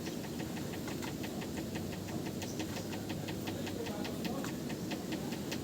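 A steady, even ticking, about six ticks a second, over a low steady rumble.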